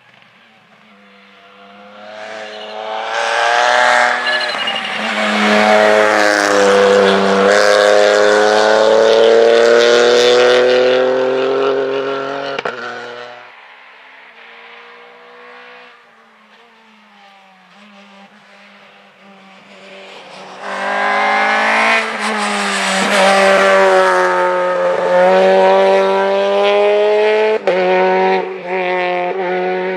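Two rally cars pass one after the other at full throttle on the stage, each engine note swelling loud and then fading. The second car's note breaks off briefly twice near the end.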